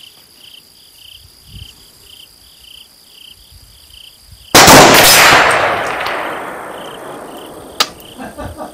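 A single shot from a 300 Blackout AR pistol with a 10.5-inch barrel, firing a supersonic 110-grain load, about four and a half seconds in; the report rings and echoes away over the next two seconds. A short sharp click follows about three seconds later, and insects chirp about twice a second underneath.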